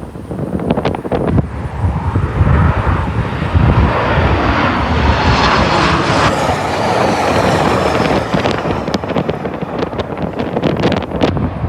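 Southwest Airlines Boeing 737 jet passing low overhead on approach: the jet engine noise swells, peaks near the middle with a falling pitch as it goes by, then fades. Gusts of wind buffet the microphone throughout.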